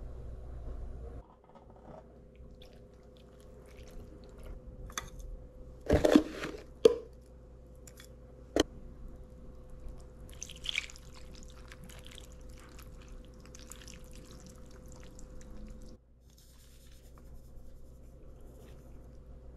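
Kitchen handling sounds over a faint steady hum: a few sharp clinks and knocks about six, seven and eight and a half seconds in, then sukiyaki sauce being poured into an electric hot-plate pan around ten seconds in.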